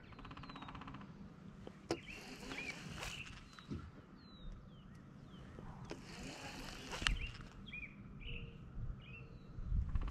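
Small birds chirping in short rising and falling calls over a low rumble of wind on the microphone, with a short rapid rattle at the start and a couple of sharp clicks from handled fishing gear.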